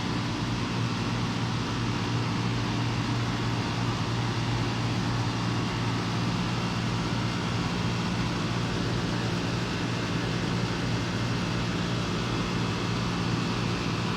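Lennox central air conditioner running steadily: a low, even compressor hum under the rushing of its fan.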